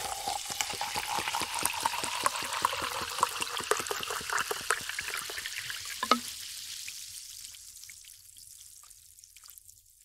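Cola being poured over ice into a glass: a dense fizzing crackle of carbonation with the splashing stream. About six seconds in the pour stops with a short knock, and the fizz fades to sparse pops.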